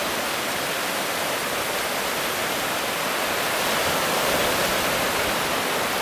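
Ocean surf washing over a shallow sandy beach: a steady rush of water that swells slightly about four seconds in.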